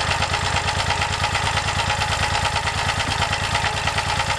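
Small portable generator engine running steadily on HHO (hydrogen-oxygen gas) fed through a hose into its intake, with an even rapid pulse. Its RPM picks up slightly as the injection hose is pushed about 3 millimeters closer in.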